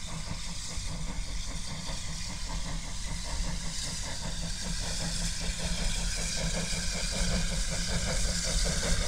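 Narrow-gauge (750 mm) steam locomotive approaching under power, its exhaust chuffing in a quick even rhythm with a steam hiss, growing steadily louder as it nears.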